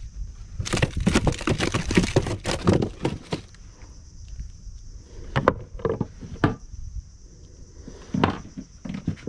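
Close rustling and knocks of handling in a small wooden boat while a small caught fish and fishing pliers are worked: a dense clatter over the first few seconds, then a few scattered single knocks, over a steady high hiss.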